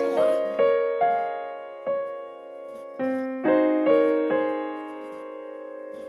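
Piano background music: a slow melody of struck notes and chords, each fading away, with one chord left to die out near the end.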